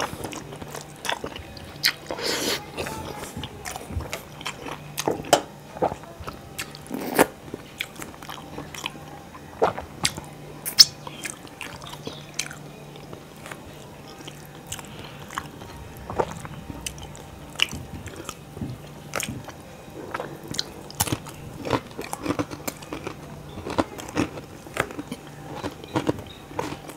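A man eating rice and fish curry by hand, heard close on a clip-on microphone: wet chewing and mouth sounds with irregular sharp clicks.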